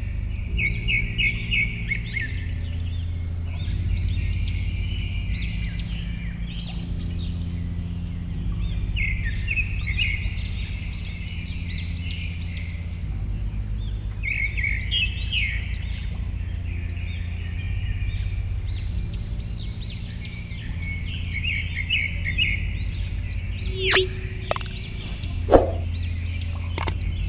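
Songbirds chirping in quick repeated trills over a steady low rumble, with a few sharp clicks near the end.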